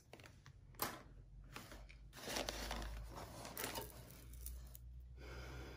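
Hands rummaging through a pile of costume jewelry and its packaging: rustling with a sharp click a little under a second in.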